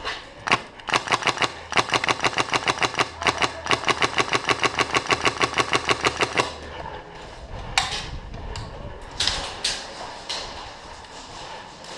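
Airsoft RPK with a Polarstar compressed-air engine firing a long string of shots at several a second for about six seconds, followed by a few scattered single shots.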